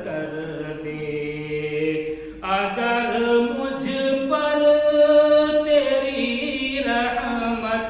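A man singing an Urdu devotional nazm (a prayer-poem) unaccompanied, in long held melodic notes. About two and a half seconds in, the voice steps up to a higher held note, then sinks back down.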